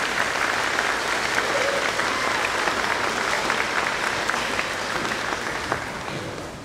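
Audience applauding, many hands clapping steadily; the clapping tapers off near the end.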